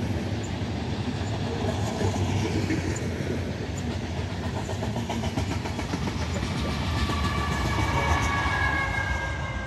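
Freight train of covered hopper cars rolling past close by, a steady rumble with wheels clicking over rail joints. A diesel locomotive passes near the end, and a few high steady tones, falling slightly in pitch, sound over the rumble in the last couple of seconds.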